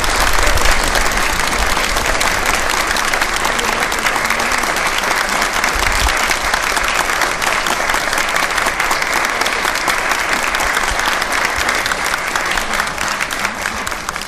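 Audience applauding, with one person clapping close to the microphone; the applause thins out near the end.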